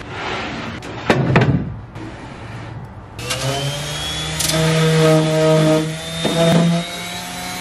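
Plywood panel handled and knocked against a plywood hull, loudest just after a second in. About three seconds in, an electric orbital sander starts and runs against plywood, its whine rising as it comes up to speed, then holding steady.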